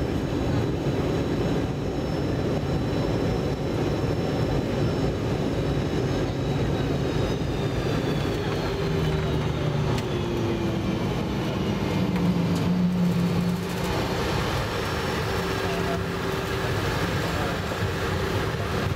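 Cabin noise of a Boeing 717 taxiing after landing: a steady rumble from its rear-mounted Rolls-Royce BR715 engines and the rolling gear. Between about four and nine seconds in, a thin engine whine falls in pitch as the engines wind down.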